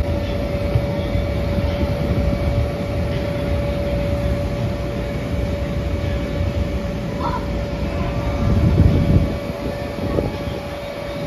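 Steady drone of an inflatable obstacle course's electric air blower, with a constant hum over a low rumble, swelling briefly louder near the end.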